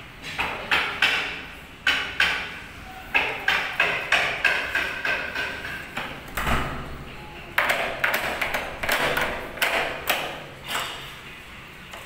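Metal rim door lock being worked by hand: a rapid, uneven series of sharp metallic clicks and pings, each ringing briefly, with one dull thud about halfway through.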